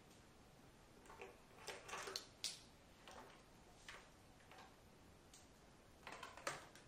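Faint handling noises at a bench: a few short clicks and rustles of paper and equipment being moved, bunched about two seconds in and again near the end.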